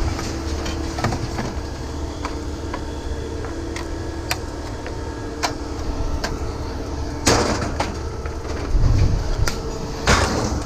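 A starter motor across the yard running on with its push button stuck in, a steady whine over a low engine rumble. Scattered metal clicks, and two loud metal clanks in the last few seconds.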